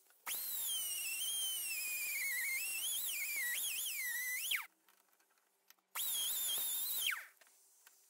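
High-speed power tool with a wire cup brush whining as it scrubs factory paint off a boat motor's anode held in a vise. The pitch wavers and dips as the brush is pressed on, and falls away as the tool spins down. There are two runs: a long one of about four seconds, then a short one of about a second.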